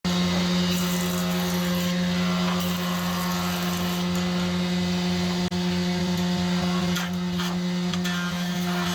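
Electric woodworking power tool running, its motor giving a steady hum of constant pitch with a hiss of working noise on top, and a momentary break about five and a half seconds in.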